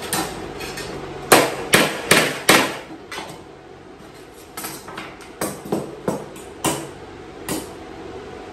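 Hammer striking steel parts on a metal-topped workbench: four hard, ringing blows in quick succession a little over a second in, then lighter taps spread over the next few seconds.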